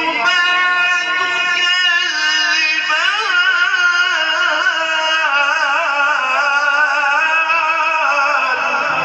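A man's voice reciting the Quran in long, drawn-out melodic phrases, the held notes wavering with ornaments. A new phrase starts about three seconds in.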